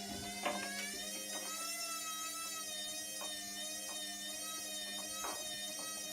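Hotpoint WMBF742 washing machine's motor running with a steady hum and a whine that rises about a second in, then holds steady as the drum turns. A few faint clicks sound through it, the strange clicking the machine makes.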